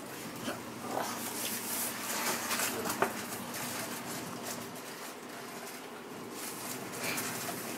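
Rustling and handling of a paper gift bag, with a sharp tap about three seconds in.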